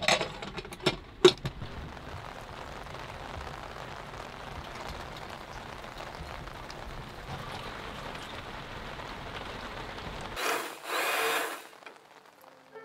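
Pressure cooker lid clicked shut with a few sharp metal clicks, then steady rain falling on the boat's deck and the water. About ten and a half seconds in, a short, louder hiss that lasts about a second.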